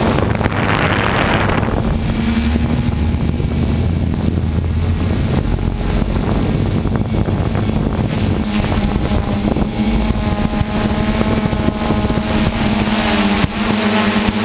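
A six-rotor hexacopter's motors and propellers humming steadily in flight, heard from the camera mounted on the craft. A gust of wind noise rushes over the microphone about a second in, and the pitch of the motors shifts near the end.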